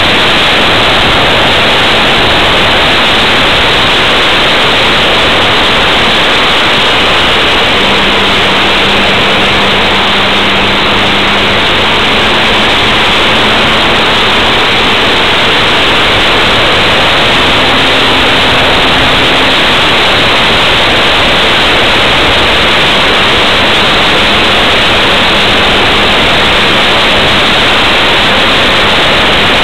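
Loud, steady rush of wind and propeller noise picked up by a wing-mounted camera on a radio-controlled Yak 54 model plane in flight, with a faint motor tone underneath that steps in pitch a few times.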